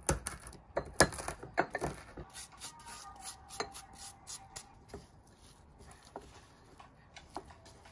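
White ceramic bowls clinking and knocking together, with scraping and rubbing as wet cat food is scraped from one bowl into another and kneaded by a gloved hand. Several sharp knocks in the first two seconds, then lighter, sparser taps.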